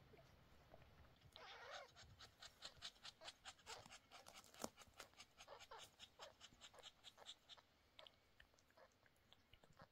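Mother cat licking her newborn kittens clean: faint, quick wet licks, about four or five a second, tailing off near the end.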